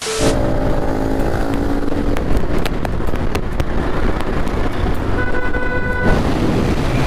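A brief burst of static hiss, then a motorcycle engine running under wind rush while riding at road speed. A horn sounds for about a second, about five seconds in.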